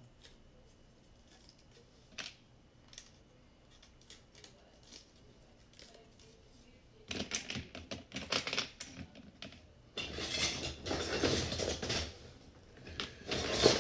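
Plastic Lego bricks being handled, with a few light clicks at first. About halfway in, a busy run of clicking and rattling begins, as bricks are pressed together and sifted through.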